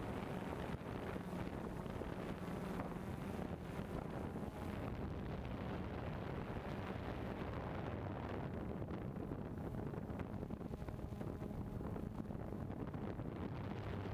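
Small multirotor drone's propellers and motors humming steadily, picked up by its onboard camera along with wind noise on the microphone.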